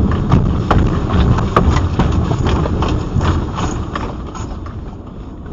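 A car rattling and knocking over a low rumble as it shakes on a highway overpass in a strong earthquake, heard from inside the car. The knocking is irregular and dies away over the last couple of seconds.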